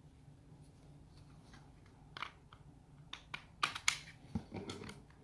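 Handling of a small cordless mini chainsaw and its plastic parts: after a quiet start, a string of sharp clicks and knocks, the loudest two a little before four seconds in, then a short rustle.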